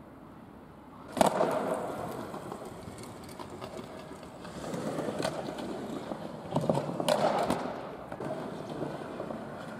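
Skateboard wheels rolling on pavement, with sharp clacks of the board striking the ground: the loudest about a second in, more around five and seven seconds in.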